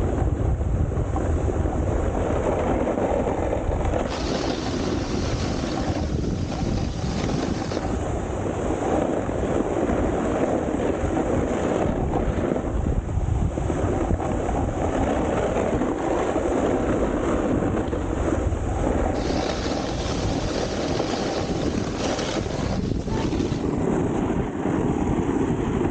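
Snowboard sliding and scraping over icy, hard-packed snow, with wind rushing on the microphone; the scraping grows and fades a few times along the run.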